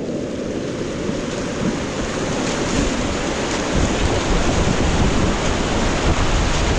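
Whitewater rapid rushing and churning close around a kayak, a steady dense hiss of broken water that grows a little louder in the second half.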